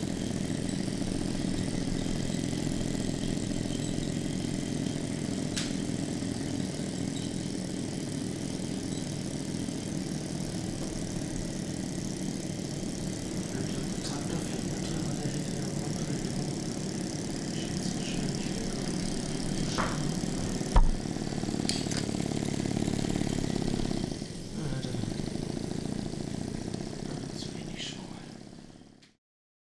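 Small Stirling hot-air engines driving Lego Technic models, running with a steady mechanical whirr from the engine and gearing. A single sharp click about two-thirds of the way through, then the sound fades out near the end.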